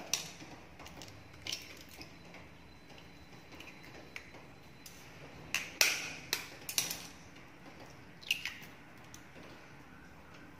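Eggs being cracked into a glass bowl: scattered sharp taps and clicks of eggshell on glass and shells breaking, loudest in a cluster a little past the middle.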